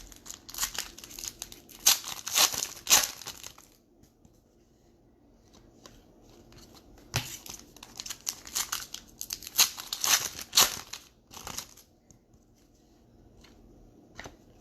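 Plastic wrapper of a trading card pack being torn open and crinkled, in two spells of crackling rustle a few seconds apart.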